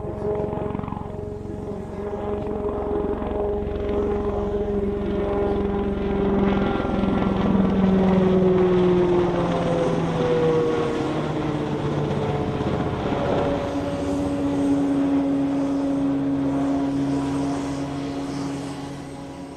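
X-49A SpeedHawk compound helicopter flying past, its rotor and ducted tail propeller giving a rumble with a steady hum. The hum drops in pitch as the aircraft passes, loudest about eight seconds in, and fades near the end.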